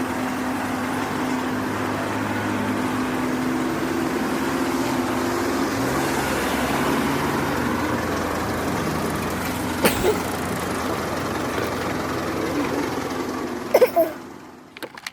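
Construction vehicle's engine running steadily, with a sharp knock about two-thirds of the way in and a couple more clanks just before the sound drops away near the end.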